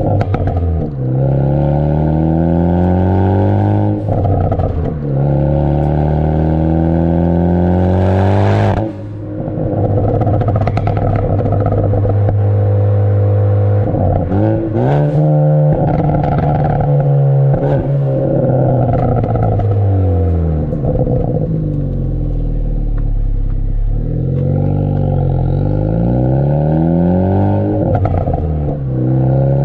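Ford Focus ST's turbocharged four-cylinder heard at the tailpipe of its Borla cat-back exhaust while driving. The revs climb and drop again and again, as at upshifts, with a short rising hiss at one shift about nine seconds in. A few pops and crackles come on lift-off from the pops-and-crackles tune.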